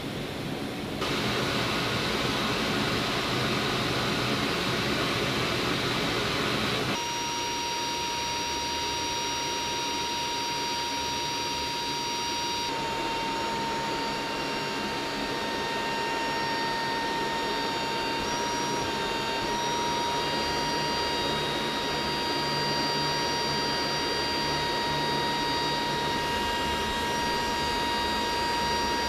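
Aircraft engines running steadily, heard from inside a cargo aircraft's hold with the rear ramp open: a constant rushing noise, joined about seven seconds in by a steady high-pitched turbine whine.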